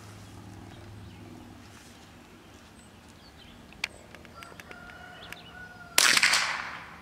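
A single shot from a Marlin Model 60 .22 LR rifle: a sharp crack near the end that trails off over most of a second. A small click comes a couple of seconds before it.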